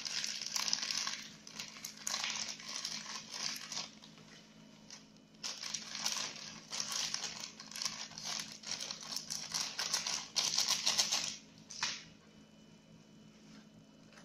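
Plastic Oreo cookie wrapper crinkling as it is squeezed and twisted by hand. The rustling comes in two spells with a pause of about a second and a half between them, and it stops about two seconds before the end.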